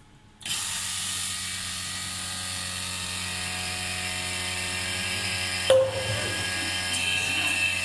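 Electric vacuum pump switched on about half a second in, then running steadily with a hum and a hiss as it pumps the air out of a bell jar. A single sharp knock about six seconds in.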